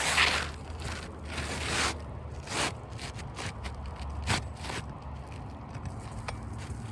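Asphalt shingle being slid into place under the course above: a series of short scrapes and rustles, with a few sharp scuffs.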